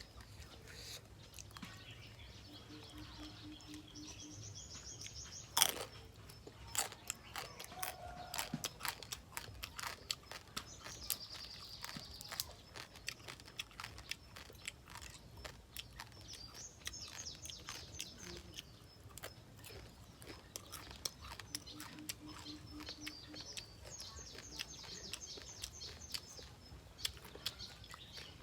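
Crunching and cracking of deep-fried stone crab shell as it is eaten: many sharp clicks, with one loud snap about five seconds in. Birds chirp in short trills now and then in the background.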